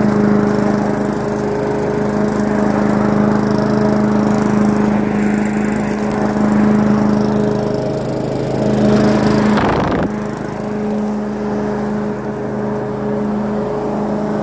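Harry petrol rotary lawn mower running at a steady engine speed as it cuts grass and gathers leaves, passing close by. A short loud burst of noise comes just before ten seconds in, and the mower is a little quieter after it as it moves away.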